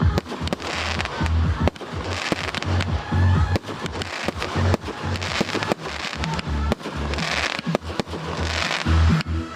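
Fireworks display going off: a rapid run of sharp bangs and crackling, with heavy low thuds, over music playing along with the show.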